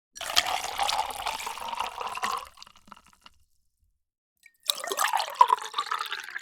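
Water being poured, in two separate pours: the first runs for about two seconds and tails off into a few drips, then after a short silence a second pour starts about two-thirds of the way through.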